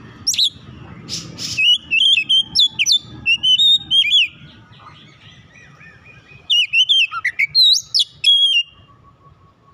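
Oriental magpie-robin singing: loud, rapid whistled phrases full of sweeping pitch glides, with a harsh rasping note about a second in. The song comes in two spells, with softer notes in the pause between them.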